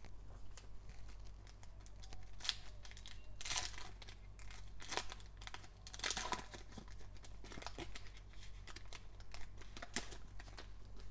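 Foil wrapper of a Panini Donruss Optic basketball card pack being crinkled and torn open by hand, in a run of sharp crackles, loudest about three and a half seconds and about six seconds in.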